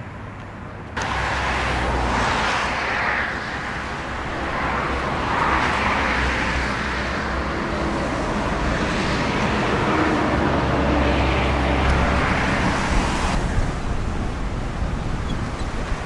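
Road traffic: several cars pass one after another, each swelling and fading over a couple of seconds, over a steady low rumble. The sound comes in abruptly about a second in.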